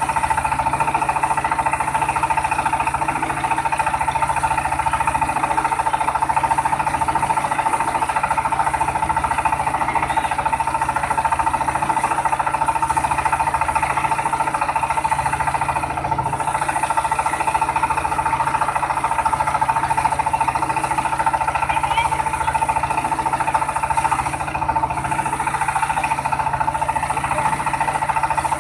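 Mobile rice-milling machine mounted on a vehicle, running steadily: engine and milling machinery make a continuous mechanical din with a steady high hum.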